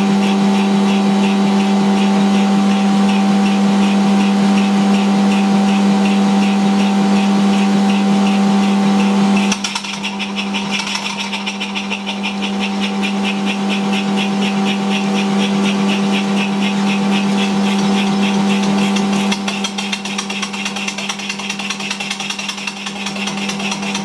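Small vertical single-cylinder steam engine running on compressed air, with a rapid, even beat of exhaust and valve ticks over a steady hum. The sound dips in level about ten seconds in and again near the end.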